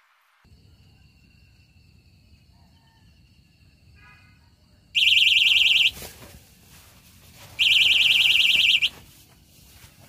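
Electronic fishing bite alarm on a rod sounding in two loud bursts of rapid high-pitched beeping, each about a second long, the second a little longer: the alarm signalling a fish taking the bait and pulling line.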